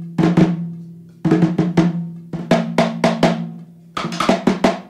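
Music intro: short groups of sharp snare and drum hits, a phrase about every second and a half, each dying away over a low held note.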